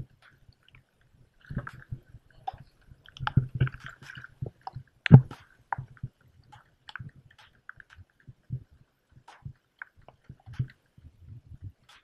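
Sea water slapping and sloshing against a kayak hull, heard as irregular muffled thumps, with a sharper knock about five seconds in.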